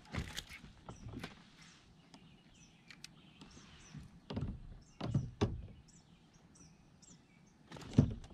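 Scattered knocks and thumps of gear against a plastic fishing kayak as the angler reels and shifts in the seat, the loudest just before the end. Small birds chirp faintly and high in the background.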